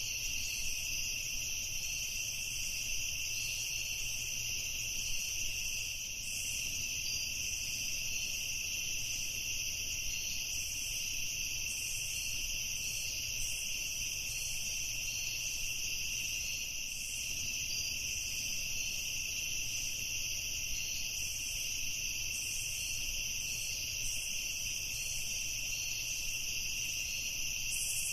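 Evening insect chorus of crickets trilling continuously, a steady high-pitched chirring that holds an even level throughout.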